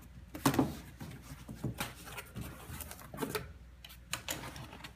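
A cardboard shipping box and its packing being handled and opened: irregular rustles, scrapes and knocks, the loudest about half a second in.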